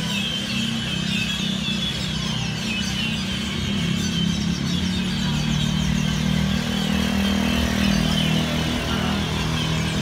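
Many birds chirping at once in the trees, short high calls overlapping continuously, over a steady low hum.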